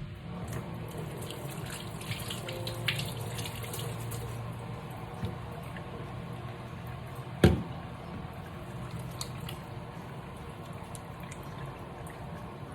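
Water running from a tap into a sink while hands are washed, a steady rush with small scattered clicks, and one sharp knock a little past halfway.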